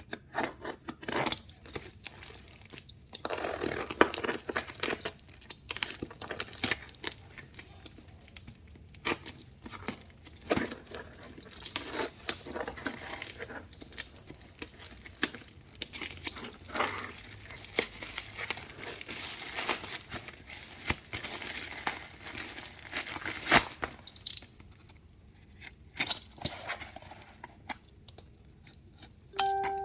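Parcel packaging being crinkled, pulled and torn open by hand, a long run of rustling with many sharp snaps.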